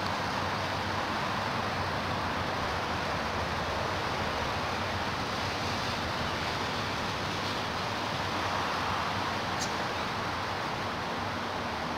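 Steady rushing background noise outdoors, even throughout, with no animal calls or distinct impacts.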